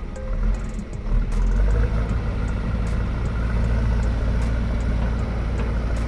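JCB backhoe loader's Kirloskar diesel engine running steadily, getting louder about a second in.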